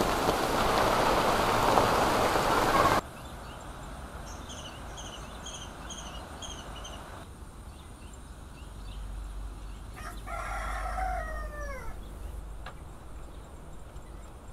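Heavy rain hissing for about three seconds, cut off abruptly. Then a quieter yard with a run of short high chirps, about two a second, followed by a rooster crowing once, its call falling at the end.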